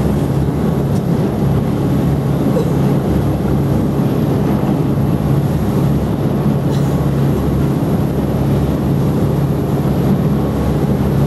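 Whale-watching boat's engines running steadily under way, a low, even drone heard from on board.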